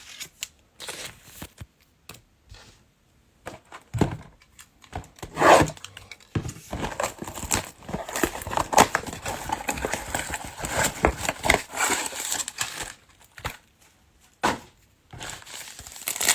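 Trading-card packaging being torn open and crinkled: wrappers ripped and crumpled by hand. There are scattered handling clicks first, then a louder tear about four to five seconds in and a long stretch of dense crinkling from about six to thirteen seconds.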